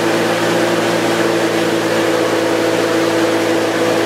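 Mountfield MC 380 LI cordless battery lawnmower's electric motor and blade running at a steady speed. It spins freely with no grass to cut, giving a steady tone over a rushing hiss.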